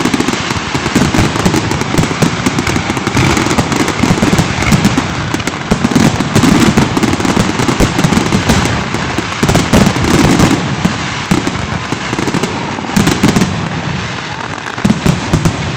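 Fireworks going off in a rapid, dense barrage of bangs and crackles, thinning out near the end to a few last bangs.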